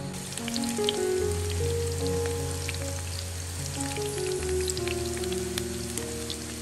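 Tofu cubes deep-frying in hot oil, sizzling with many small crackles, over background music.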